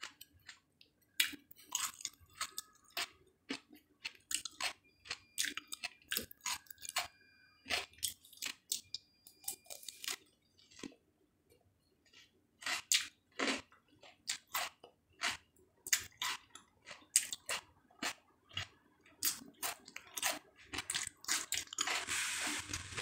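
Honeydew melon being chewed: wet, crunchy chewing of juicy, still slightly firm fruit, coming as quick, irregular bites and chews.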